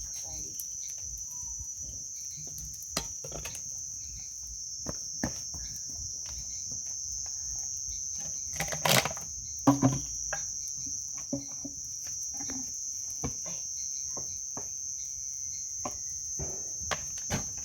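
Steady high-pitched chorus of crickets, with scattered pops and crackles from a bonfire of damp wood burning, the loudest cluster of pops about nine to ten seconds in.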